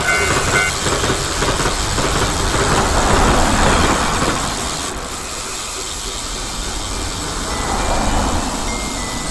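A train running past: a steady, loud rushing rumble of wheels on rail.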